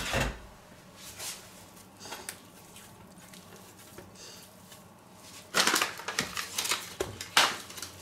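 Soft, over-oiled pizza dough being kneaded by hand on a wooden board, with sticky squelching and slapping. The kneading is faint at first and gets busier and louder from about halfway. A single knock comes right at the start.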